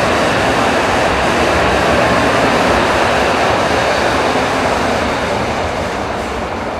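N700 series Shinkansen bullet train passing along the platform with a steady rushing noise, fading after about five seconds as the streamlined end car goes by.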